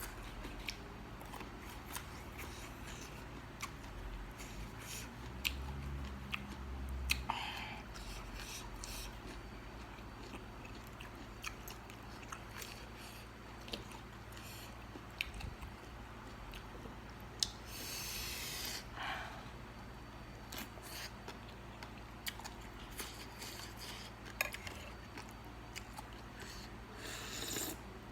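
Close-up chewing and biting of food, with irregular small crunches and mouth clicks. A longer hissing noise comes about eighteen seconds in.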